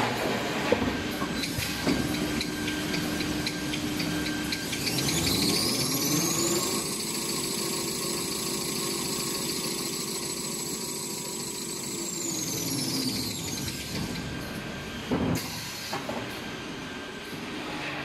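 Tissue-paper embossing and glue-lamination machine running with a steady mechanical clatter and hiss. About five seconds in, a whine rises in pitch, holds steady, then falls away again after about twelve seconds. A few sharp knocks come shortly after.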